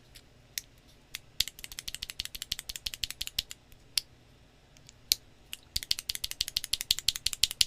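A PBT shine-through keycap on a Cherry MX-style key switch being pressed rapidly over and over, a quick run of plastic clacks, a few single clicks, then a second fast run near the end.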